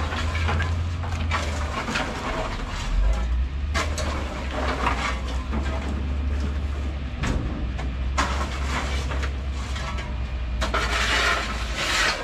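Dry copra in broken coconut shells clattering and scraping as a long-handled rake is pushed through the heap, in irregular strokes, over a steady low hum.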